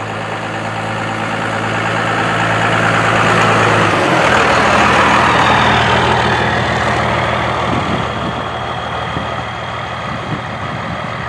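1994 Dodge Ram 2500's 12-valve Cummins inline-six turbodiesel running, getting louder over the first few seconds. Its pitch steps lower about four seconds in, and it eases off toward the end.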